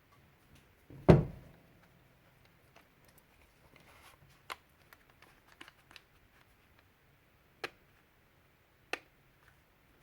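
One loud, sharp knock about a second in, then a scattering of fainter clicks and taps, the clearest two near the end.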